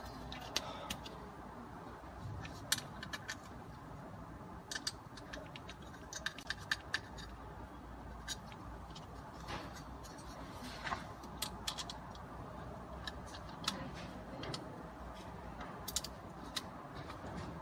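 Small hard plastic and metal parts being handled and fitted onto a BMW CAS3+ module's circuit board: scattered sharp clicks and taps at an irregular pace, over a faint steady background noise.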